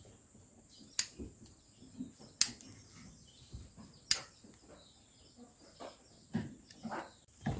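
Hoof shears snipping through a sheep's overgrown hoof: three sharp clipping snaps a second or more apart, with lighter knocks and shuffling between them.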